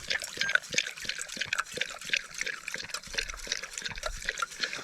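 A dog lapping water from a cup: a quick run of short wet clicks and splashes.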